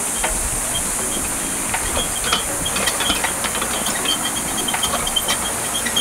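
Steady high hiss of a patio misting system spraying, with a string of short high chirps and a few light clicks and knocks.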